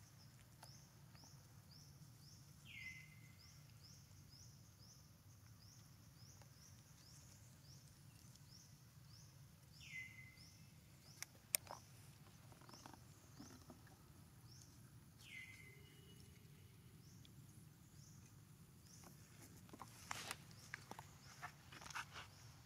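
Quiet outdoor ambience with birds calling: a high chirp repeated about twice a second for the first several seconds, and three short downward-sliding calls spaced several seconds apart. A single sharp click comes about halfway through, and a few soft taps and rustles near the end.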